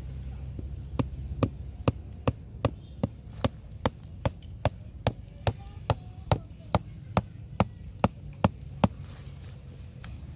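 Steady hammering: about twenty sharp, evenly spaced strikes, roughly two and a half a second, stopping about a second before the end.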